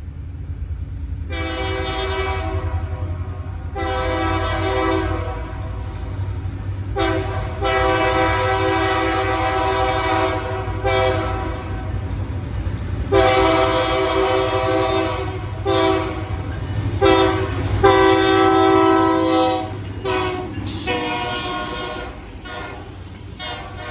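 Freight locomotive's multi-tone horn (PR20B 300) sounding two long blasts, a short one and a long one, the grade-crossing signal, then a run of shorter blasts, over the steady low rumble of the passing train.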